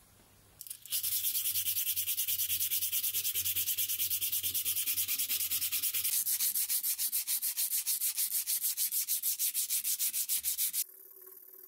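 220-grit abrasive paper rubbed by hand over a bare metal vise part in rapid back-and-forth strokes, roughly six a second, making a scratchy hiss. It starts about a second in and stops abruptly shortly before the end.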